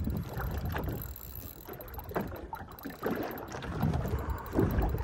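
Water slapping and lapping against the hull of a small fishing boat in irregular splashes, louder in the second half, with wind buffeting the microphone.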